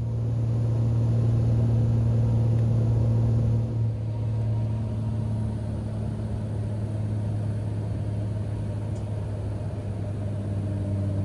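Single-engine high-wing propeller plane's piston engine droning steadily inside the cabin as the plane lands and rolls out on the runway. The drone dips a little about four seconds in and then runs on slightly lower.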